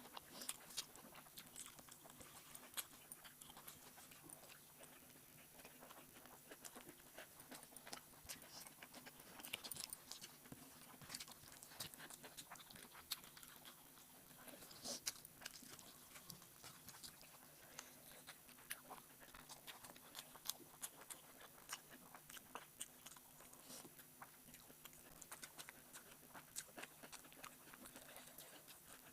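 Faint close-up eating sounds: chewing and wet mouth smacks from a meal of rice and egg curry, with irregular clicks and a few louder smacks scattered through.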